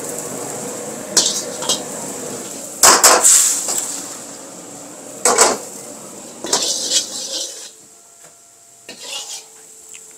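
A steel ladle clanking and knocking against a wok, several sharp metallic strikes, over a steady rushing background that drops away about three-quarters of the way through.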